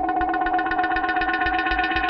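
Background music: held notes pulsing quickly and evenly over a low beat.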